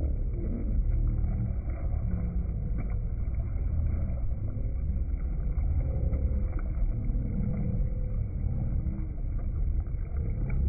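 Steady low rumble of a boat on open water.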